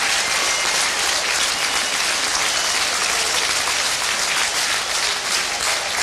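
Football stadium crowd cheering and clapping steadily, celebrating a goal.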